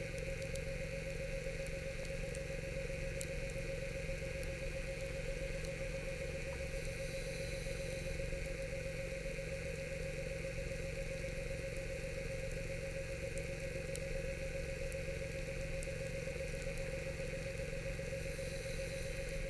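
Underwater scooter (diver propulsion vehicle) motor running steadily, a constant hum with a steady whine.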